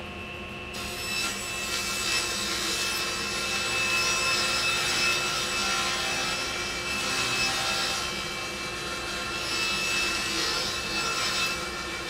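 Table saw cutting a sheet of half-inch plywood: the saw runs with a steady whine and the blade rasps through the wood, growing louder about a second in as the sheet is fed into the blade.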